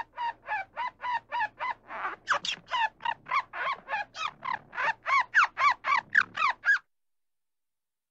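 Eastern gray squirrel calling: a fast run of short barks that rise and fall in pitch, about four a second, stopping shortly before the end.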